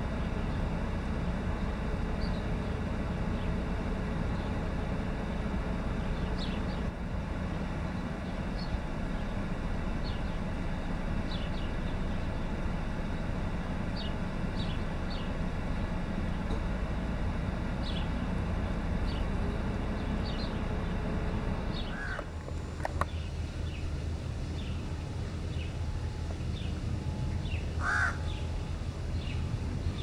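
House crows cawing a few times, the clearest call near the end, over a steady low rumble that drops about three quarters of the way through.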